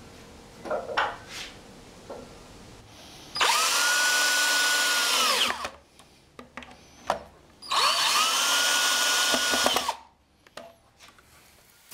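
DeWalt XRP cordless drill driving wood screws through a pine block into a 2x4 frame. It makes two runs of about two seconds each, its motor whine rising to a steady pitch and dropping off as the trigger is released. A few light knocks of wood being handled come before the first run.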